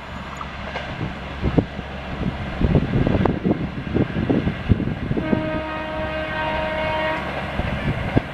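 Express train coaches rolling past, wheels clattering and knocking over rail joints. A little past the middle a train horn sounds steadily for about two seconds.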